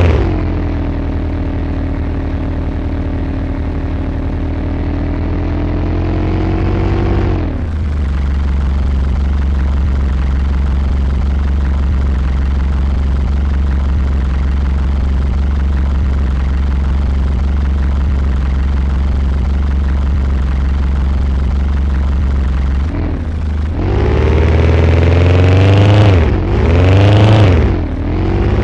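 Loud playback through a car sound system. A steady deep bass runs throughout, with pitched tones that slide down over the first several seconds and swoop up and down again near the end.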